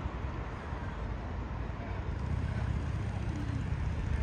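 City street ambience: a low, uneven rumble of distant traffic, growing slightly louder about halfway through.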